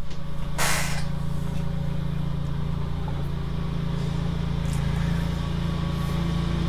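A steady engine idle, a low even hum with a short knock about half a second in.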